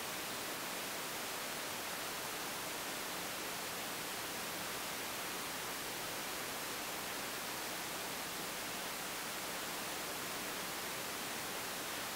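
Steady, even hiss of recording noise, with no other sound.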